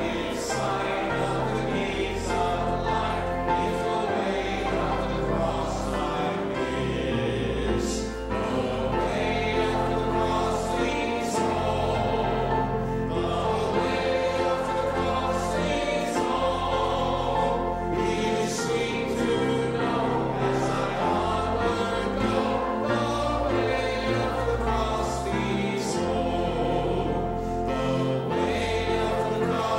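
Church choir singing with instrumental accompaniment, including sustained bass notes and occasional cymbal-like crashes.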